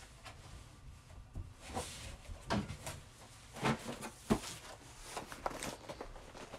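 Knocks, clicks and rustling of a cardboard box being fetched and carried by hand, the loudest knock about four seconds in.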